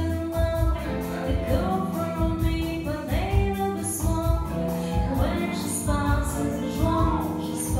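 A woman singing through a microphone over live keyboard accompaniment from a Yamaha Motif XF8 synthesizer, with a steady beat and bass line.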